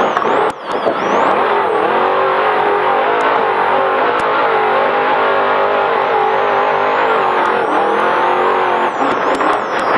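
Trophy Truck's race engine running hard at high revs, its pitch wavering with the throttle. It lifts off sharply about half a second in and briefly again near the end, then pulls again.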